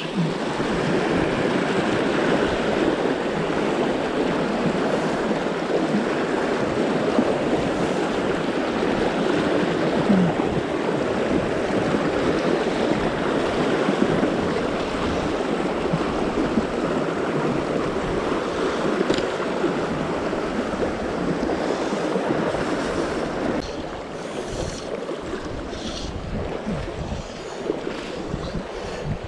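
Fast river riffle rushing around the wading angler, a steady close rush of water. It drops a little quieter near the end.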